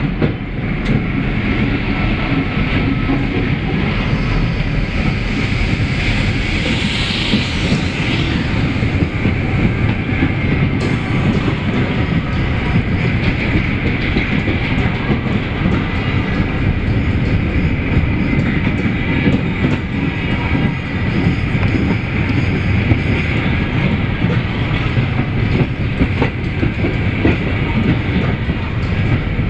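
Canadian Pacific freight train's covered hopper cars rolling past, loud and steady, with the steel wheels clicking over the rail joints.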